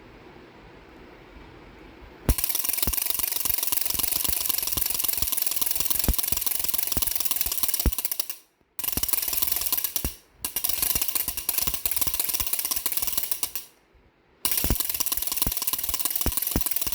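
A baby rattle shaken fast and continuously, a dense clatter of rapid clicks. It starts about two seconds in and stops briefly three times.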